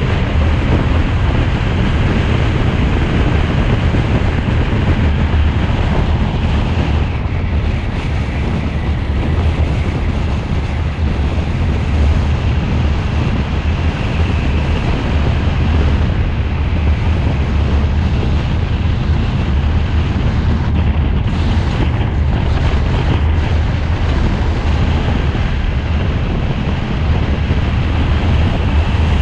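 Steady low wind rumble on the microphone mixed with road and running noise from a vehicle driving along at speed.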